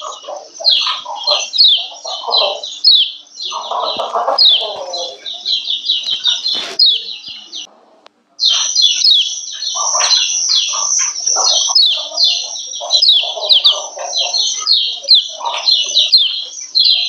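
Female kecial kuning (yellow white-eye) giving rapid, dense runs of short high 'ciak ciak' chirps with a rougher, lower chatter mixed in, breaking off for under a second about eight seconds in. These are the female calls used to rouse male white-eyes into breeding condition and get them singing.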